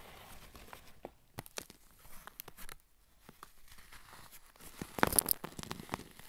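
Fingers crumbling dry clumps of Comet scouring powder flecked with coloured bits: soft, scattered crackles and crunches, with a louder flurry of crunching about five seconds in.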